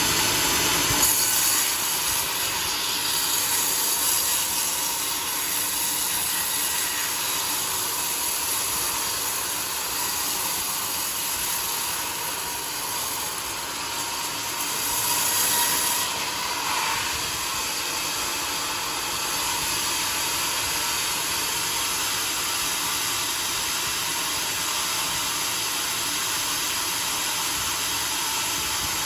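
Homemade sawmill's blade cutting through a flood-soaked log. It is a steady high hiss with a faint whine, and it swells briefly about a second in and again around fifteen seconds in.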